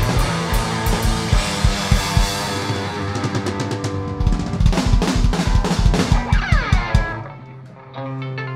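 Live rock band playing an instrumental section with electric guitar, bass guitar and drum kit, the drum hits coming thick and fast in the middle. About seven seconds in the band breaks off, and a single held chord rings out near the end.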